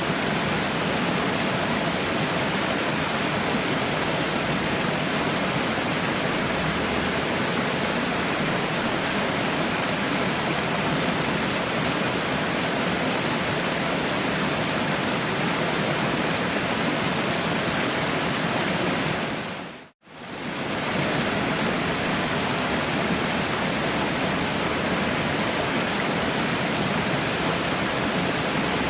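A waterfall rushing steadily. About twenty seconds in, the sound dips briefly to silence and fades straight back in.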